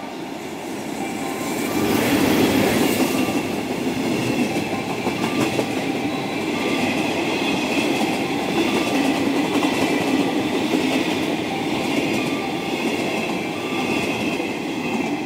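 EF65 electric locomotive passing through the station at speed, hauling a train of Chiki flatcars loaded with long welded rails. The rolling wheel-on-rail noise swells as the locomotive goes by about two seconds in, then the wagons keep up a steady rumbling and clatter until the end.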